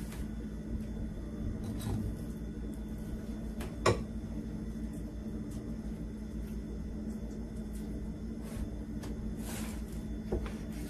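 Butcher knife knocking on a wooden cutting board while cutting raw chicken: one sharp knock about four seconds in and a few light taps near the end, over a steady low hum.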